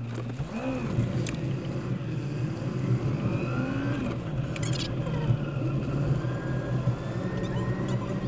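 Car engine and road noise heard from inside the cabin, sped up so the engine's pitch swoops up and down quickly, with a few short rattling clicks.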